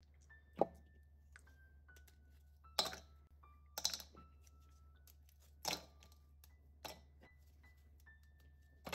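A plastic chopper bowl knocked down onto the countertop, then crisp gingerbread cookies snapped by hand and dropped into the bowl: a handful of separate sharp cracks and clicks.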